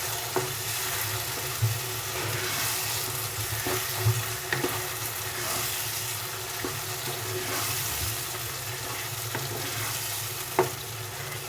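Green peas being stirred into a tomato-onion masala in a hot pan: steady sizzling of the oil, with the spoon scraping and clicking against the pan now and then.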